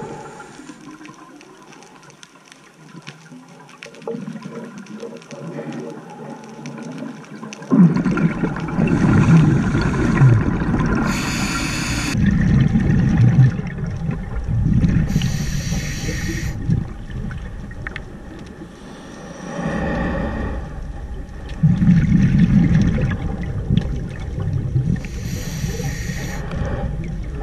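Scuba regulator breathing heard underwater: short hissing inhalations alternate with bubbly, rumbling exhalations, about four breaths, quieter for the first several seconds.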